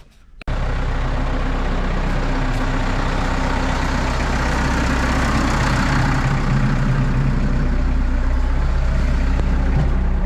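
Farm tractor's diesel engine running steadily, cutting in abruptly about half a second in.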